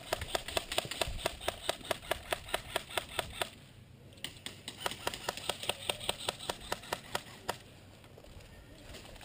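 Airsoft gun firing in two long strings of evenly spaced shots, about six a second, with a short pause about four seconds in.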